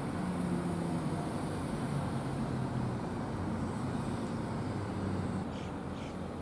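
Road traffic: a vehicle engine hums steadily over tyre and road noise, easing off slightly near the end, with a few short high squeaks in the last second.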